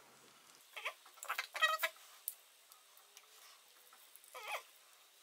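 A metal spoon scraping against a glass jar as thick, set honey is dug out: a handful of short squeaky scrapes and clicks, the loudest about one and a half seconds in.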